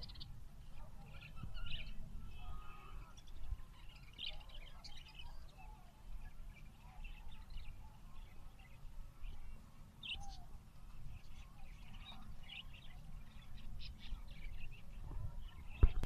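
Caged budgerigars chirping and chattering in scattered short calls over a low background rumble, with a sharp click near the end.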